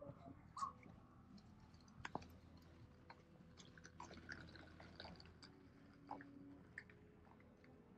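Near silence: faint scattered small clicks and crunches, with a few distant bird chirps.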